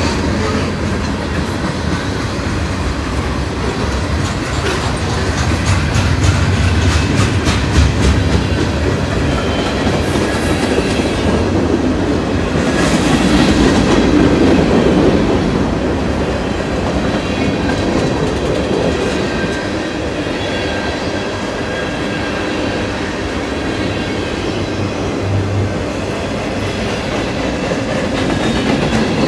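Freight train cars rolling past close by: a steady rumble with wheels clacking over the rail joints, swelling louder twice.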